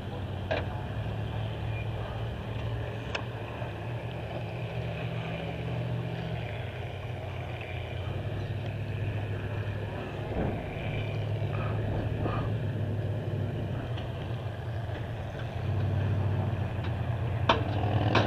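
Demolition derby car engines idling with a low, steady hum, growing louder near the end, with a few scattered sharp clicks.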